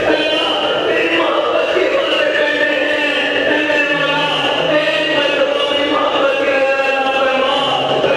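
Many men's voices chanting together in a congregational supplication, the lines of the voices overlapping and drawn out rather than spoken.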